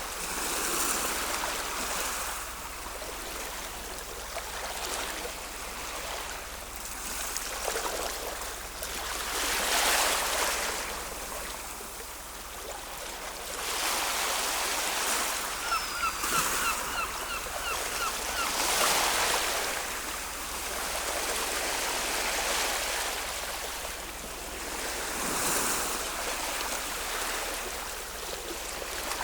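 Ocean waves washing in and breaking, swelling and fading every few seconds. About halfway through, a bird gives a brief rapid run of short chirps.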